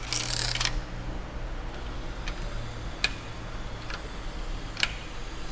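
A short rustle, then four scattered light clicks a second or so apart, over a low steady hum.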